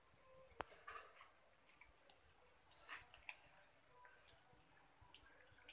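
Crickets trilling steadily in a faint, fast-pulsing high chirr, with a single faint click about half a second in.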